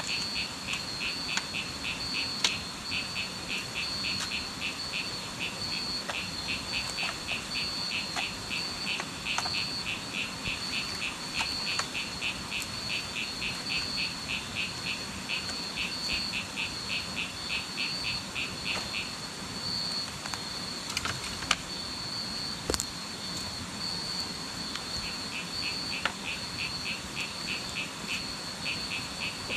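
Night chorus of calling frogs and insects: a fast, even train of pulsed calls that stops about two-thirds through and starts again near the end, over a steady high trilling call.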